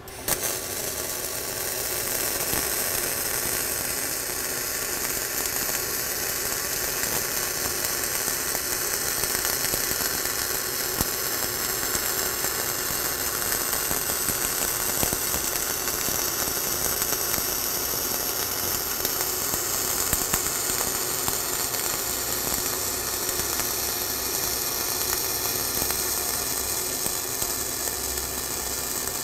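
Flux-core wire-feed welding arc burning overhead on a steel plate: it strikes suddenly at the start and then runs on with a steady crackling hiss, peppered with small pops of spatter, as a fill pass is laid along the toe of the previous bead.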